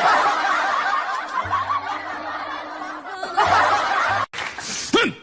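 Laughter, many short snickers and chuckles overlapping, over background music. After a sudden cut near the end, a few short high calls that rise and fall in pitch.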